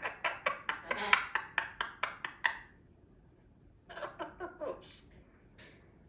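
A parrot making a quick run of short, clinking click-like calls, about four a second, stopping for a moment and starting again about four seconds in.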